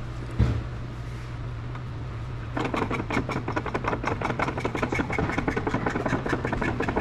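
Hydraulic shop press running with a steady low hum, with a single thump about half a second in. About two and a half seconds in, a fast clatter of roughly ten clicks a second joins the hum as the press pushes the brake piston down into the torque hub.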